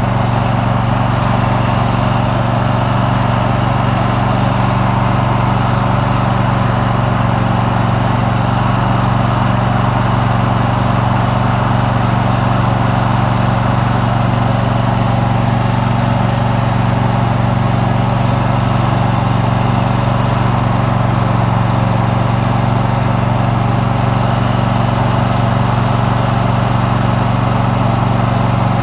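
Riding lawn mower's engine running loud and steady as the mower is driven along, an even drone with a strong low hum that holds the same pitch throughout.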